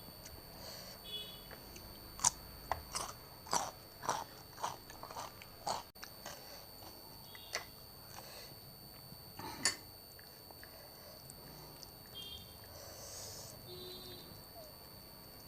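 Close-miked eating: a quick run of crisp, crunchy bites and chewing a couple of seconds in, then a few scattered crunches.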